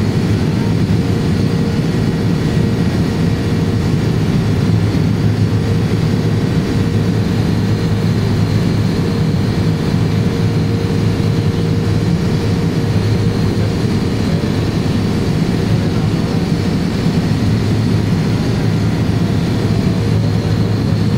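Cabin noise inside a British Aerospace Jetstream 32 in flight: its twin Garrett TPE331 turboprops and propellers give a loud, steady drone. The drone has a deep hum and a fixed higher tone running through it.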